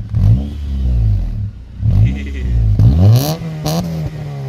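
Car engine revved in quick throttle blips, the pitch shooting up and dropping back to idle, then a longer, higher rev about three seconds in that winds back down.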